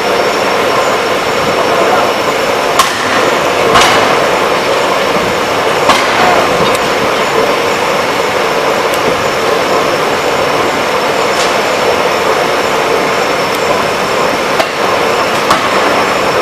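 2-tonne electro-hydraulic open-die forging hammer at work: a loud, steady machine din from its hydraulic drive, broken by about seven sharp strikes at uneven intervals.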